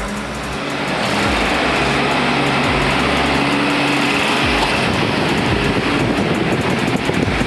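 Diesel engine of a JCB 3DX backhoe loader running under load while digging and loading mud, revving up about a second in and holding at high revs.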